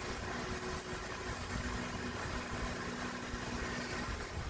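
Oxy-fuel torch flame burning steadily during brazing, a constant even hiss with a faint steady hum underneath.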